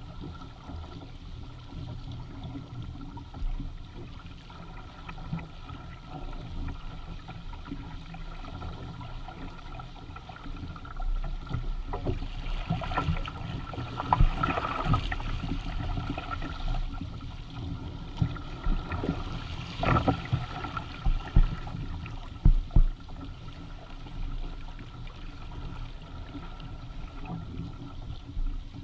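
Water rushing and splashing along the hull and outrigger floats of a Hobie Tandem Island sailing kayak under way, with wind buffeting the microphone as a low rumble. The splashing swells about halfway through, followed by a few sharp low thumps.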